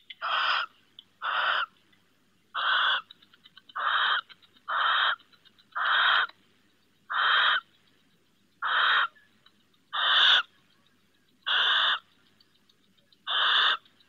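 Barn owl giving a long series of harsh, hissing screeches, about eleven, each around half a second long and one every second or so, with faint quick clicks between some of them.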